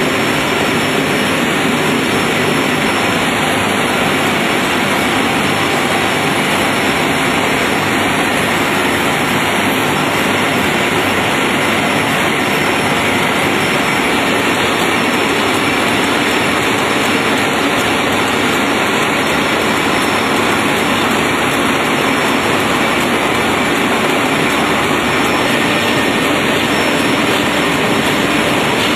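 Adult diaper production line running at speed: a steady, dense mechanical din with a fast, fine rattle that does not change.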